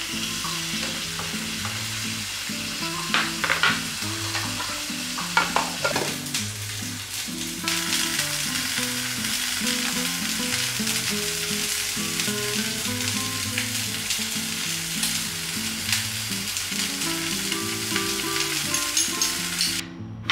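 Food sizzling as it fries in a shallow pan, with a few sharp clicks of metal tongs against the pan a few seconds in. Soft background music with a melody plays underneath.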